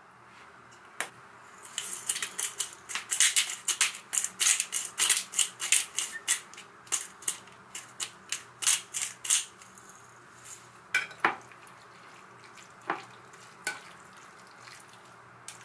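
A pepper grinder twisted in quick strokes, a rapid run of gritty crunching clicks for several seconds. Then metal tongs clink against a glass dish a few times while tossing sliced raw pork.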